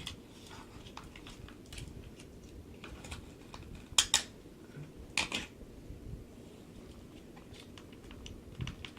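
Scattered light clicks and scrapes of a small screwdriver working stuck screws out of a plastic RC truck chassis, with two sharper clicks about four and five seconds in.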